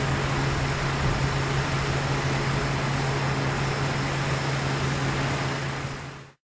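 Diesel railcars idling in a depot yard: a steady engine hum under a constant noisy rumble, fading out about six seconds in.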